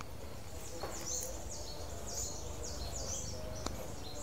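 A bird calling in a series of quick, high, falling chirps, about two a second, over steady low forest background noise.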